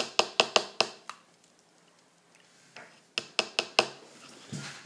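Sharp taps of a paintbrush knocked against its water cup as it is cleaned: about five quick taps, a pause of about two seconds, then four more.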